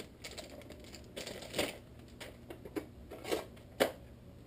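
A plastic toy disc blaster and its packaging being handled: a handful of scattered short clicks and knocks with light rustling, the sharpest click near the end.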